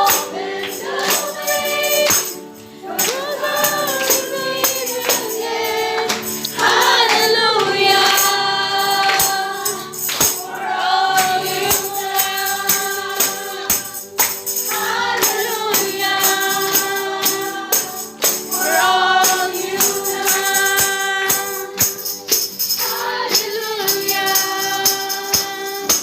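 Group of voices singing a Christian worship song with long held notes, a tambourine keeping time throughout.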